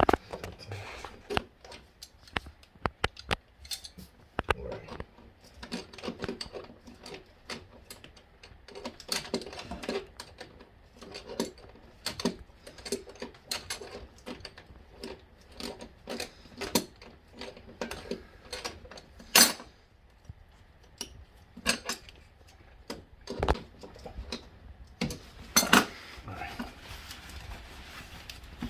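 Irregular metallic clicks and clinks of a wrench working on the nuts that hold a toilet down, with a few louder knocks.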